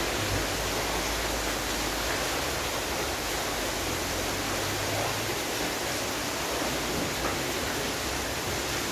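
Rain falling steadily, a dense even hiss, with a brief low rumble about halfway through.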